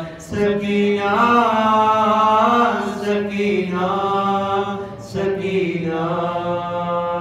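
A man chanting a marsiya, a mourning elegy, solo in long drawn-out melodic phrases, taking short breaths between them: just after the start, at about three seconds and at about five seconds.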